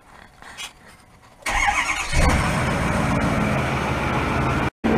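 A Ford F-450 truck's engine is cranked and fires about a second and a half in, then settles into a steady idle.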